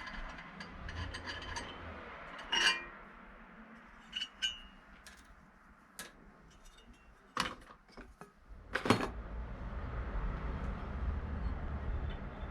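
Metal parts of a disassembled ATV CVT pulley clinking and knocking as they are handled and set down: a ringing clink a few seconds in, a few lighter clinks, and the loudest knocks near the nine-second mark. A low rumbling noise follows in the last few seconds.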